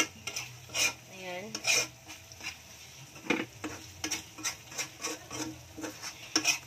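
A spoon scraping and knocking against a frying pan as shrimp paste with pork is stirred, in repeated strokes over a light sizzle of the oil frying it.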